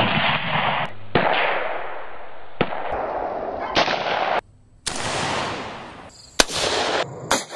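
AR-15-style semi-automatic rifles firing single shots, about seven sharp cracks spaced roughly a second or more apart, each followed by a long echoing tail. The sound breaks off briefly about halfway through.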